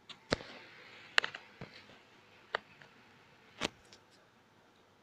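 A handful of short, sharp clicks and taps, about five spread over a few seconds, with a faint rustle after the first.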